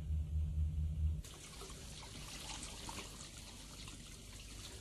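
A low pulsing hum that stops about a second in, followed by water running from a tap in a steady trickle.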